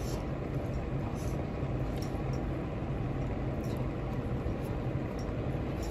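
Soft slurping as a mouthful of fried rice vermicelli is sucked in from chopsticks, then quiet chewing, over a steady low hum.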